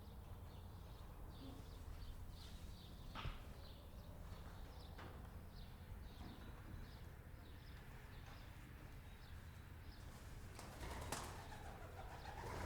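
Farmyard ambience: small birds chirping over a steady low rumble, with a sharp click about three seconds in and a louder wavering animal call near the end.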